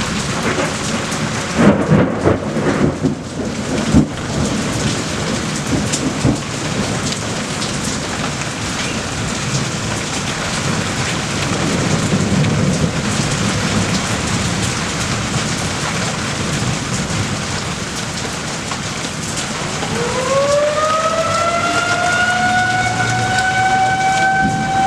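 Heavy rain falling steadily during a thunderstorm, with thunder crackling in the first few seconds and a sharp crack about four seconds in. About twenty seconds in, a siren winds up in pitch and then holds a steady tone.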